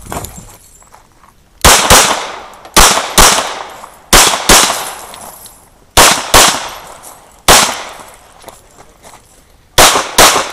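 CZ 75 SP-01 pistol fired rapidly: eleven loud shots, mostly in quick pairs with pauses between them as the shooter moves from target to target, each shot trailing off in a short echo.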